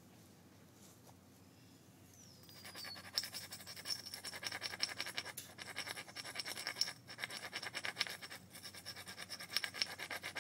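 A tool scraped rapidly back and forth along the edge of a piece of obsidian, several quick scratchy strokes a second, starting about two and a half seconds in. This is typical of abrading the edge while flintknapping.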